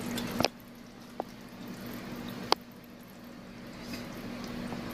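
A knock from the pot lid being lifted about half a second in, then chicken broth poured from a plastic tub into a pot of tomato stew, with faint liquid splashing. There is a sharp tick midway and a steady low hum underneath.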